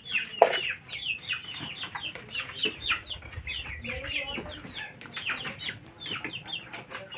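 Chickens clucking and calling: a steady stream of short, high, falling calls several times a second, with a louder sudden sound about half a second in.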